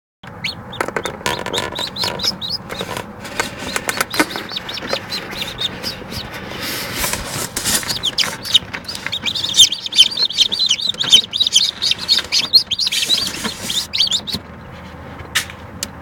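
Newly hatched domestic chicks peeping: many short high calls, a few at first and then packed densely through the second half, stopping shortly before the end. Scattered clicks and rustles run under the calls.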